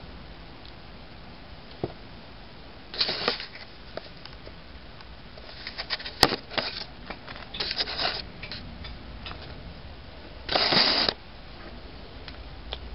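Hands handling small differential parts: scattered short rustles and clicks, with one sharp click about six seconds in and a brief scraping rustle near the end.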